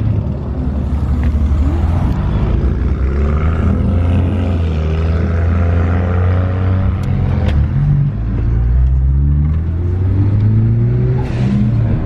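Car engine running under way, its note climbing and dropping several times as the car accelerates and shifts gears. The car is the uploader's hybrid-turbo Ford Focus ST.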